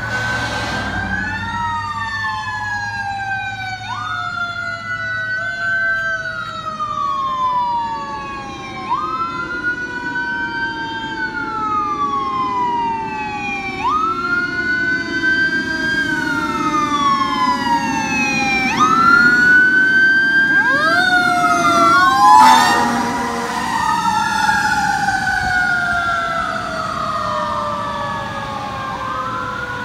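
Fire rescue ladder truck's siren wailing, each cycle rising sharply then falling slowly about every two and a half seconds, with a lower tone slowly falling beneath it. The truck's engine grows louder as it approaches, and a short loud blast about two-thirds of the way through is the loudest moment as the truck passes.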